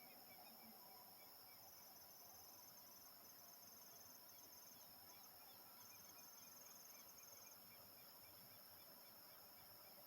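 Faint evening insect chorus: a steady high-pitched buzz, with a cricket-like pulsed trill coming in about a second and a half in, breaking off a few times and stopping a few seconds before the end.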